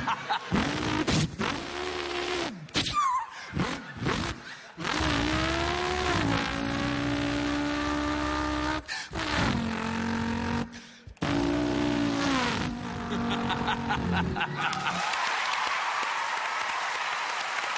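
A man imitating a car engine with his voice, the pitch climbing as if revving and dropping as if shifting gears, several times with brief breaks. From about three-quarters of the way through, an audience applauds.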